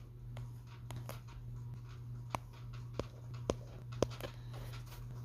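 Scattered sharp clicks and taps over a steady low hum, the loudest four coming about half a second apart in the second half.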